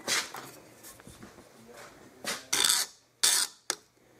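Metal hand tools clattering on a workbench, then, about halfway through, a steel file rasping in short strokes across an annealed quarter-inch steel spindle held in a vice. The file bites, a sign the steel is now soft enough to file and thread.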